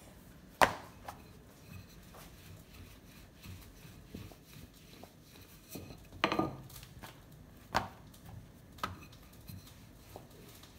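Chapati dough being turned and rolled out with a wooden rolling pin on a worktop: quiet rubbing broken by a few sharp knocks, the loudest about half a second in and others around six, eight and nine seconds in.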